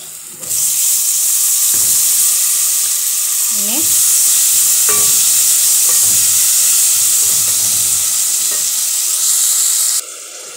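Chopped tomatoes sizzling loudly as they hit hot oil with fried onions and spices in a metal pot, stirred with a wooden spoon, with a few light knocks of the spoon. The sizzle starts about half a second in and stops suddenly near the end.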